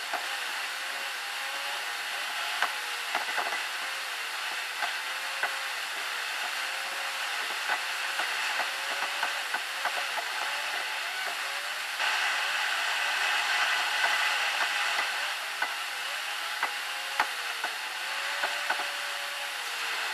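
Road noise inside a car cruising on an expressway: a steady hiss with frequent small clicks and crackles, louder for a few seconds a little past the middle.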